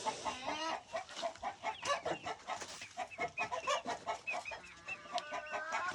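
Chickens clucking: a quick run of short calls, several a second, with no break.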